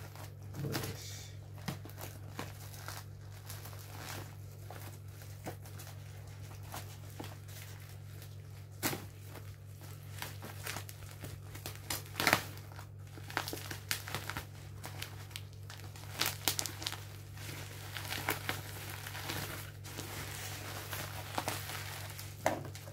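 Plastic courier mailer bag crinkling and tearing as it is cut with scissors and pulled open by hand, with scattered sharp crackles, the loudest about twelve seconds in.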